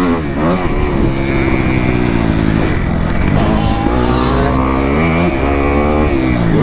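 Kawasaki KX250F four-stroke dirt bike engine running hard on a motocross lap, its pitch rising and falling as the throttle is worked. A short burst of hiss comes about three and a half seconds in.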